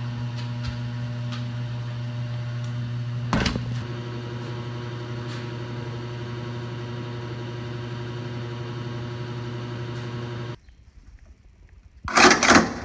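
Steady electrical hum, with a single knock about three seconds in. The hum cuts out about two seconds before the end, and then comes a loud metallic clatter as the coin slide of a coin-operated washing machine is pushed in.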